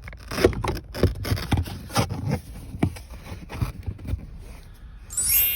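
Plastic center-console trim pieces being pushed and worked into place by hand: a busy run of scrapes, knocks and clicks, then a short bright ringing tone about five seconds in.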